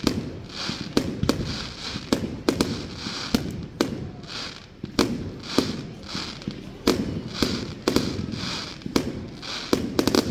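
Fireworks going off in a rapid string of sharp bangs, about one to two a second, with a hiss between them.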